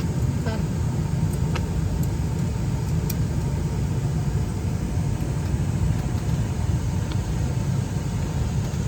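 Steady low rumble of aircraft cabin noise from an airliner parked before departure, with a few faint clicks.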